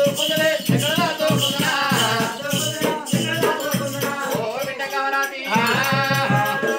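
Singing over a double-headed barrel drum beaten in a steady rhythm, with jingling bells. The drum pauses briefly about five seconds in.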